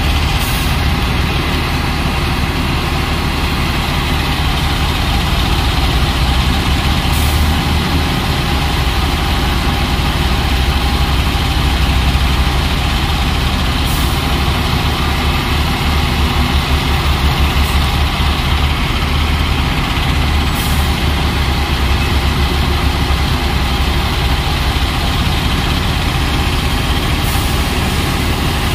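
Wheel loader's diesel engine running steadily, heard close up from on top of its engine hood, with a deep, even low-pitched sound.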